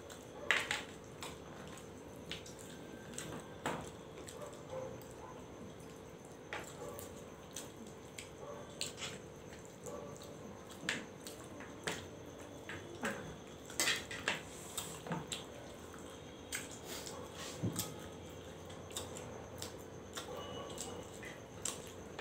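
Eating by hand from stainless steel plates: irregular small clicks and scrapes of fingers and food against the steel, over a faint steady hum.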